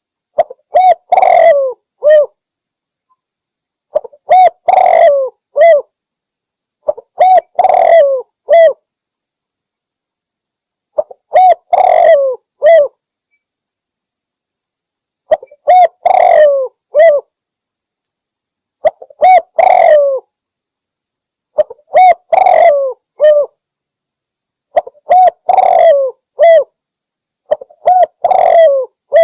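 Spotted dove (derkuku, tekukur) cooing in short phrases of a few coo notes, repeated about every three seconds with silence between them. It is a lure call played to draw in other spotted doves.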